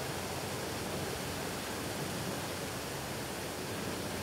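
Water gushing skyward from a fire hydrant that a car has crashed into and broken open, heard as a steady, unbroken rush.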